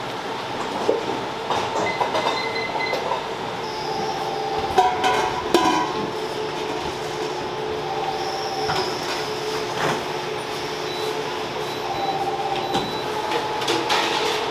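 Steady machine hum with a few sharp knocks and clatters near the middle.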